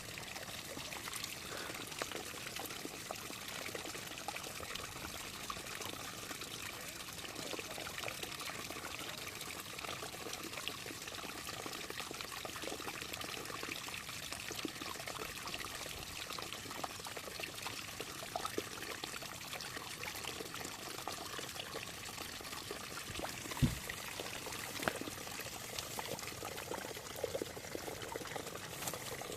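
Water trickling and splashing steadily, with many small ticks throughout and a single low thump about 24 seconds in.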